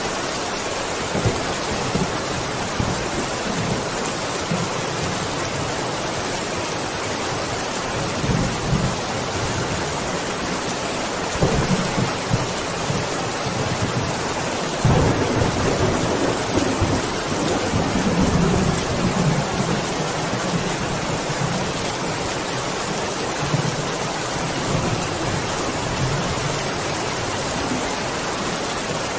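Steady heavy rain with thunder rumbling low several times, the longest roll starting about halfway through and lasting a few seconds.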